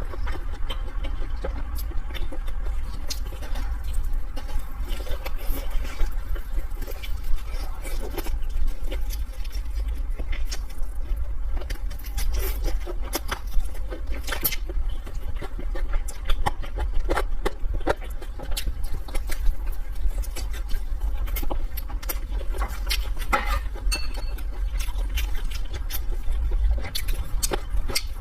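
Close-up eating sounds: a person chewing and smacking food, with many short irregular clicks and crunches, over a steady low rumble.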